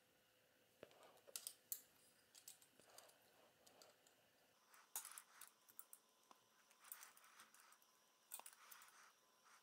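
Faint, irregular metallic clicks and scrapes of steel tongue-and-groove pliers gripping and squeezing thin aluminium plates, pressing the interlocking tabs of a grappling hook together to lock them.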